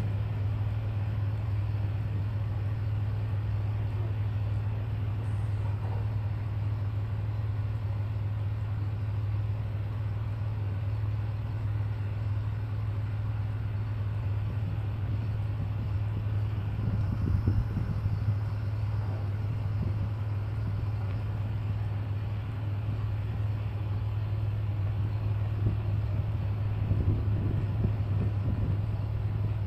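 A ship's diesel engine running steadily with a deep, constant hum. It swells briefly louder about halfway through and again near the end.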